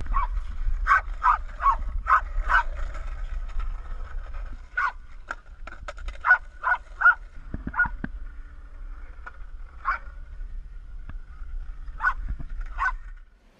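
A dog barking in short, sharp yaps, a quick run of five or six at the start and more scattered after, over a steady low rumble.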